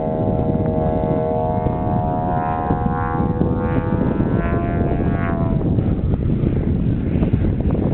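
Engine of a 50% scale Edge aerobatic RC plane (a 3W-275 gasoline engine) running in flight. Its drone slowly falls in pitch and fades out about five and a half seconds in, leaving wind noise on the microphone.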